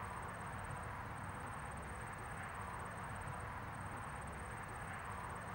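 Steady background noise: a low rumble under an even hiss, with a faint high-pitched whine.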